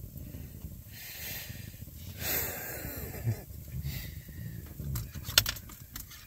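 A sleepy dog breathing out in two long, soft huffs or sighs, the second the louder. A couple of sharp clicks follow near the end.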